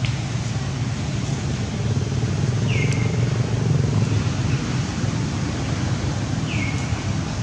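Steady low outdoor rumble, with two short high chirps that fall in pitch and then level off, about four seconds apart.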